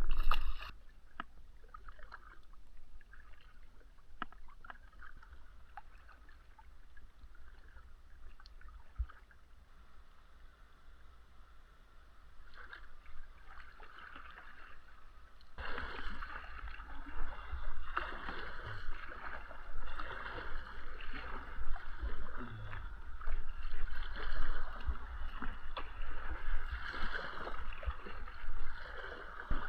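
Water sloshing and gurgling around a kayak as it is paddled. It is faint at first and becomes louder about halfway in, swelling roughly every second and a half.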